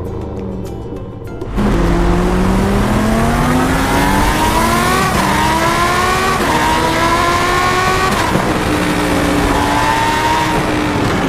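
A car engine accelerating hard up through the gears, starting suddenly about a second and a half in. The pitch climbs and drops back at each shift, several times over.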